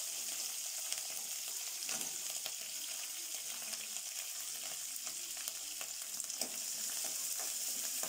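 Green chillies and curry leaves sizzling in hot coconut oil with mustard seeds in an aluminium kadai: a steady hiss, with a few sharp clicks as a metal spoon stirs them against the pan.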